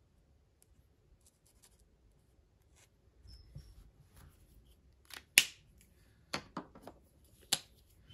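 Faint scratches of an alcohol marker's tip on paper, then a run of sharp plastic clicks in the second half as the marker is capped and handled among other markers. The loudest click comes about five and a half seconds in.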